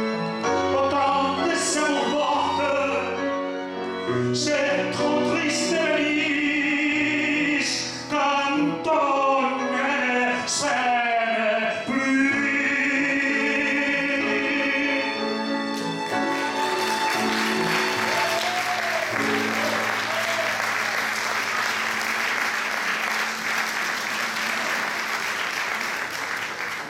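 A man sings into a microphone with violin and piano accompaniment, ending the song on a held note. About sixteen seconds in, the audience breaks into steady applause.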